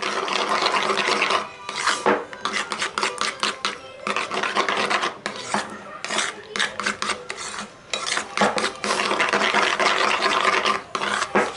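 Metal spoon stirring thick mayonnaise sauce in a paper bowl, scraping the bowl in quick repeated strokes with a few short pauses.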